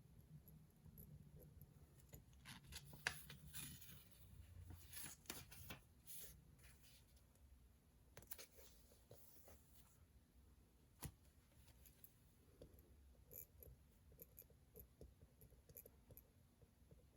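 Faint desk sounds of someone studying: bursts of paper rustling and handling with small clicks of stationery, and one sharper click partway through.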